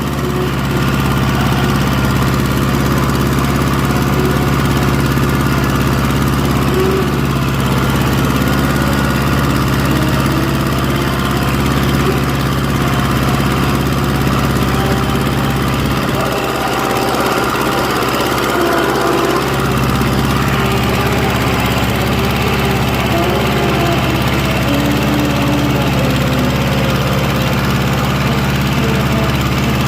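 An engine running steadily at a constant speed, its low hum easing for a few seconds about two-thirds of the way through before coming back.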